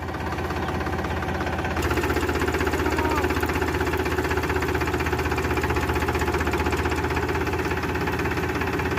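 Powertrac Euro 50 tractor's diesel engine running, revving up about two seconds in and then holding at a steady higher speed as it tows a thresher.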